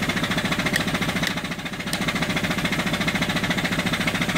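Antique Bumsted and Chandler high-speed steam engine running on steam at about half throttle, around 300 RPM, driving a Johnson & Phillips dynamo. It gives a rapid, even beat.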